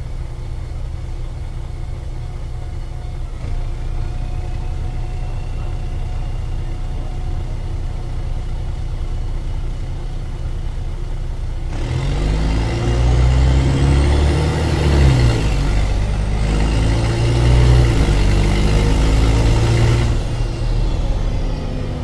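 Mercedes-Benz O-500MA articulated bus diesel engine with a holed exhaust, idling with a steady rumble. About halfway it revs up, rising and falling in pitch for several seconds, then drops back near the end; the exhaust leak makes it louder and rawer than a sound exhaust would.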